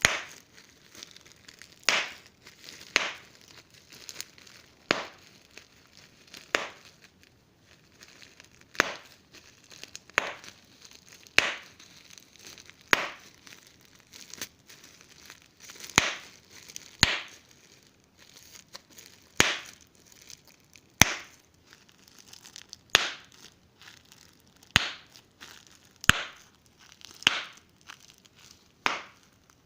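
Large-bubble wrap popped one bubble at a time: a sharp pop roughly every second, with crinkling of the plastic between pops.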